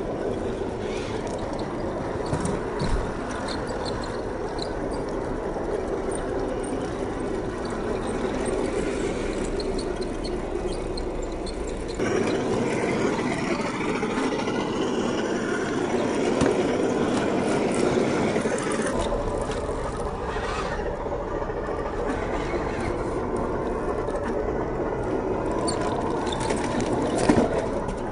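The electric drivetrain of an HG P802 8x8 RC truck, a 550 brushed motor driving geared axles, whining steadily as it crawls slowly over rocks, with an occasional knock of tyres or chassis on stone.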